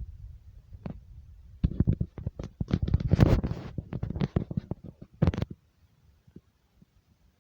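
Low rumble, then objects rattling and knocking in earthquake shaking: a dense clatter starts about a second and a half in, peaks in the middle and cuts off suddenly near the end.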